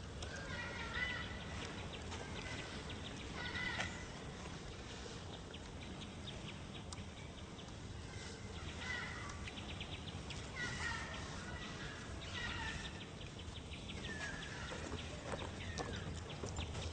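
Monkeys calling: short high-pitched calls repeated every few seconds, with a few calls sliding downward in pitch near the end.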